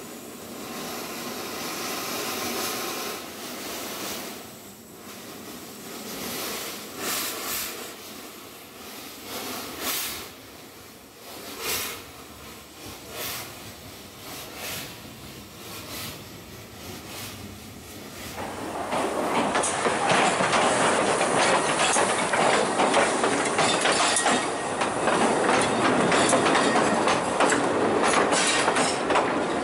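Narrow-gauge steam locomotive hissing steam and giving slow, irregular exhaust chuffs as it moves off. About 18 seconds in this gives way to a louder, continuous rattle and clatter of a narrow-gauge train's carriages rolling past on the track.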